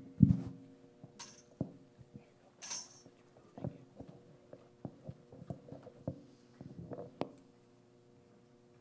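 Handling and movement noise from people shifting about near a pulpit microphone: two loud bumps right at the start, two short hissy rustles, then scattered soft knocks and taps that die away about two thirds of the way through.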